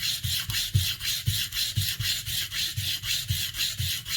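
Plane blade being honed on the coarse side of a sharpening stone in a 20-degree guide block: quick, even back-and-forth scraping strokes, about five a second, that stop near the end.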